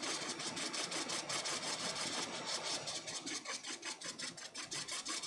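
Hot air rework station blowing on a reballing stencil to dry isopropyl alcohol off it: a hiss with a fast, even crackle.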